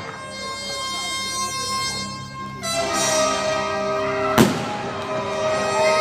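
Orchestral music with held chords, a fuller, louder chord coming in under three seconds in; a single sharp firework bang cuts through about four and a half seconds in.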